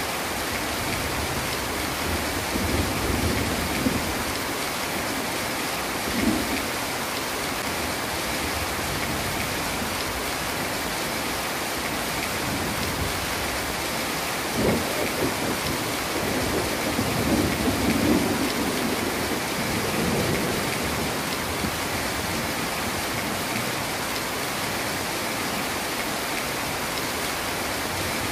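Heavy rain falling steadily, with several low rumbles of thunder: short ones in the first few seconds and a longer rolling one a little past the middle.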